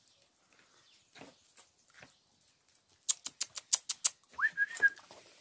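A quick run of about ten sharp clicking or kissing sounds, then one short whistle that slides up and holds its pitch, typical of a person calling puppies.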